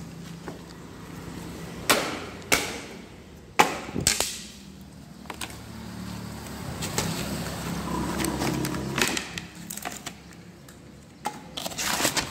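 Boards of a wooden fruit crate being knocked and pried apart, with several sharp wooden knocks in the first few seconds, then the rustle of the crate's white sack lining being handled.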